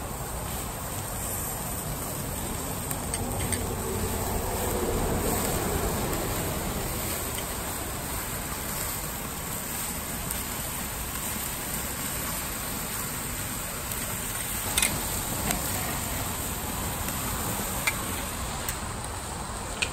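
Barbecue skewers sizzling over hot coals on a charcoal kettle grill, a steady crackling hiss with flames flaring, and a couple of sharp clicks in the last third.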